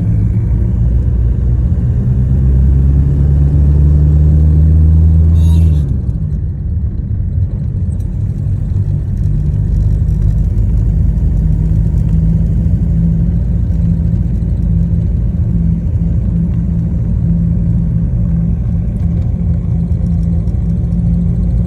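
An engine running steadily with a low drone. About six seconds in, its note drops and it settles into a noisier, even rumble.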